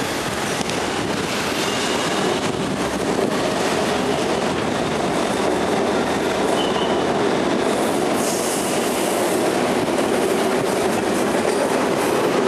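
Steady rumbling noise of a train running on rails, with a hiss higher up.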